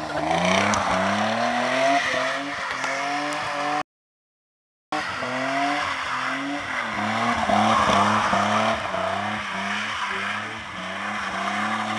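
Toyota Supra (A70) drifting on wet asphalt: the engine revs climb and fall again and again as the car slides, over the noise of tyres scrubbing on the wet surface. About four seconds in, the sound drops to dead silence for roughly a second.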